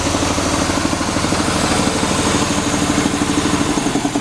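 North Star air compressor's engine running steadily with an even pulse at its 175 psi setting, pretty quiet at about 20 feet. Near the end the low end of the note drops away and the pulse slows.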